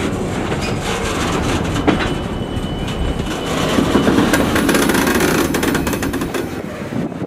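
Steel wheels of a freight train's last car rolling over the rails at a grade crossing, with a few sharp clicks over the rail joints. The rumble eases off near the end as the car clears the crossing.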